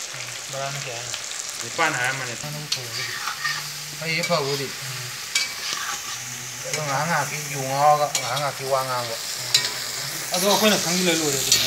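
Cubes of pork belly sizzling and crackling as they fry in their rendered fat in a wok, with the scrape of stirring. Wavering pitched tones come and go in the background.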